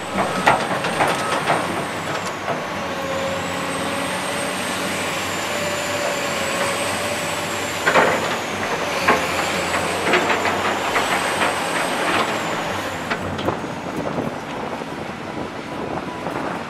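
Caterpillar 345C hydraulic excavator's diesel engine running under load, with a whine that slowly rises and falls in pitch as the boom and bucket work. Scattered clanks and knocks, the loudest about eight seconds in.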